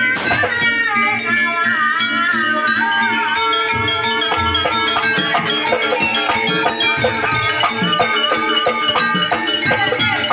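Live Javanese jaranan ensemble music: steady pitched tones and rattling percussion, with a melodic line that slides up and down in the first few seconds.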